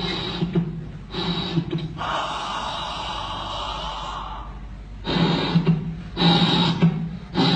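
Recorded heart sounds played back: beats about once a second with a murmur, presented as a tricuspid valve murmur. A steady hiss fills a couple of seconds in the middle.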